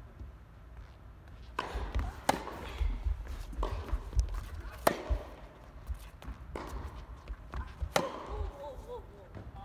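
Tennis rally in an indoor hall: a string of sharp racket strikes and ball bounces, roughly a second apart, starting about a second and a half in and ending about eight seconds in.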